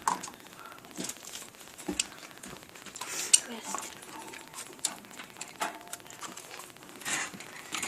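Scattered small clicks and clinks: a pet budgie pecking at and pushing a small toy or object about.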